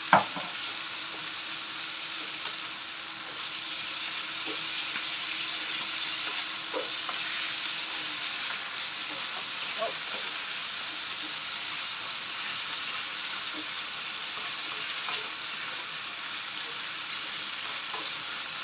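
Bok choy sizzling steadily in a hot frying pan as it is stir-fried, turned with a wooden spatula that gives a few light scrapes and ticks against the pan. A sharp knock right at the start is the loudest sound.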